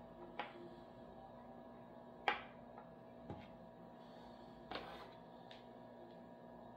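A few light clicks and knocks from small reagent bottles and a syringe being handled on a tabletop, the sharpest about two seconds in, over a faint steady hum.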